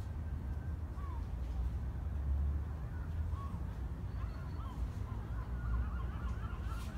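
Distant birds calling in short honking cries, few at first and more frequent from about halfway through, over a steady low outdoor rumble.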